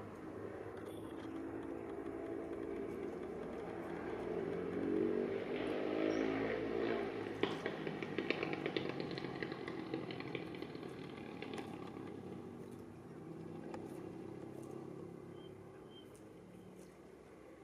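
A motor vehicle's engine passing: it grows louder about four seconds in and fades away toward the end, with a few sharp clicks near the middle.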